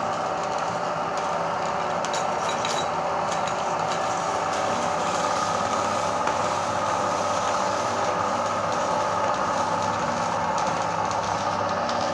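Electric meat grinder running steadily as it grinds cookies: an even motor hum that holds its pitch, with a few faint crackles a couple of seconds in.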